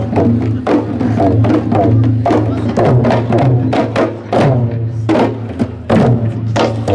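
Manipuri barrel drums (pung) beaten by dancing drummers in a pung cholom drum dance: quick, ringing strokes, several a second, in a lively rhythm, with a steady low hum underneath.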